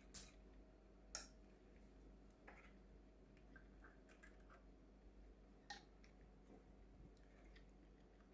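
Near silence with a few faint, irregular clicks, about four, as the cuckoo clock's chain and movement parts are handled.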